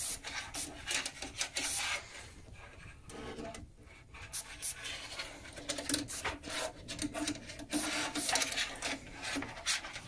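Pressurized hand sprayer spraying cleaning solution through a brass lance into a boiler's heat exchanger, in short hissing bursts, with a quieter gap in the middle.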